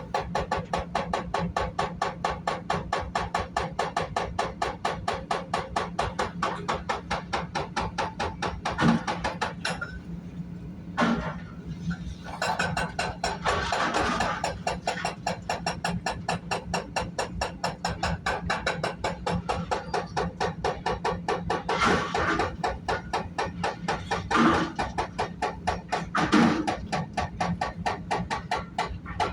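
Hydraulic breaker hammer on a CAT 330 excavator pounding concrete in a fast, even run of blows over the steady hum of the machine. It stops briefly near the middle, and a few louder impacts stand out.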